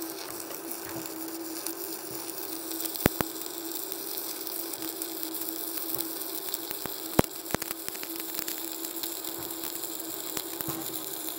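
Stick (arc) welding: an electrode burning on thick steel plate from a Boss ARC210E inverter welder set at about 150 amps, giving a steady frying crackle with a steady hum under it. A few sharp pops stand out, twice around three seconds in and twice around seven seconds.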